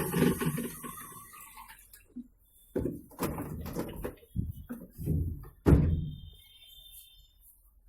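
LG top-load washing machine winding down, its running sound fading away over the first couple of seconds, followed by a string of knocks and thuds. The technician takes the machine's rattle for a faulty gearbox.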